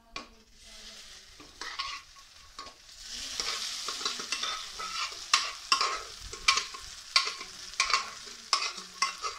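A steel spoon scrapes cooked vegetables and dal out of a pressure cooker into a hot frying pan, with repeated scrapes and clinks of metal on metal about once a second. Under them runs a sizzle that grows louder about three seconds in as the wet vegetables land in the hot roasted coconut.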